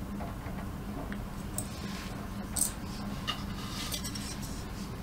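Light clicks and taps of glass and plastic as a glass mirror build plate is handled and seated on a 3D printer bed, a few sharper ticks scattered through, over a faint steady hum.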